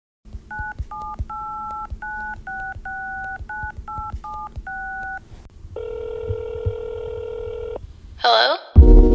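Telephone keypad dialling: about ten short touch-tone beeps of uneven length, each two pitches sounding together. A steady telephone ringing tone follows for about two seconds, then a brief sweeping sound, and loud music starts right at the end.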